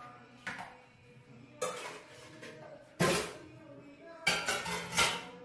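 Five sharp knocks or clatters at uneven intervals, each dying away quickly; the last three are the loudest.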